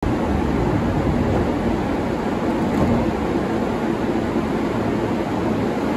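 Tokaido Line rapid electric train departing, a steady loud rumble of wheels and running gear.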